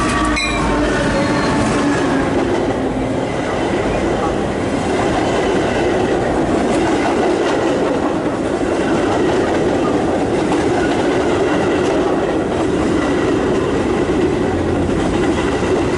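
Metra commuter train passing close by. The diesel locomotive goes by at the start with brief high-pitched tones, then the stainless-steel bilevel coaches roll past with a steady rumble and wheel noise.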